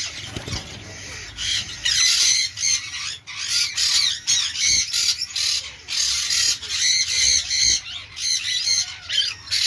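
Cockatiels calling: a dense run of short, high calls that becomes nearly continuous about a second and a half in.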